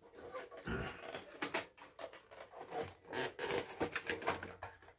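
Paper and cardboard packaging rustling and scraping as an insert is handled and pushed back into a box: irregular rustles and light scrapes, busiest a little past halfway.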